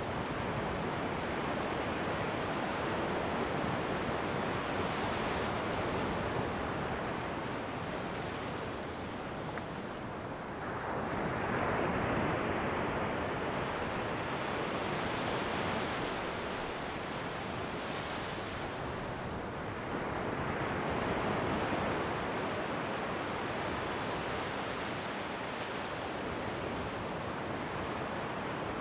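Ocean waves washing onto a shore, a continuous surf with waves swelling and breaking, the biggest about 11 seconds in and again about 21 seconds in, with the hiss of water running back.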